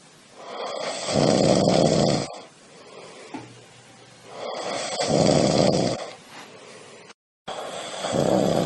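A cat snoring: three long snores about three and a half seconds apart, with quieter breathing in between. The sound drops out completely for a moment just after seven seconds.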